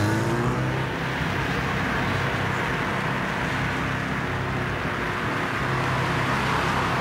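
Fiat Punto hatchback driving along a street and passing by: steady engine hum and tyre noise, swelling a little near the end as it goes past.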